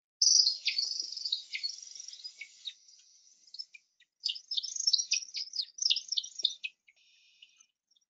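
Recording of an American woodcock's display flight played through a phone speaker: a fast, high, continuous twittering of the wings for the first few seconds, then a run of quick separate chirps as the bird comes in to land. A weird, alien-like sound.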